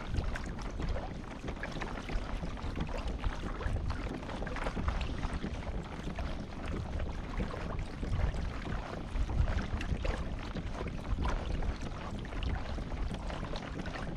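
Wind buffeting the microphone over the sound of water against a boat's hull at sea, a rumbling, gusting noise that rises and falls.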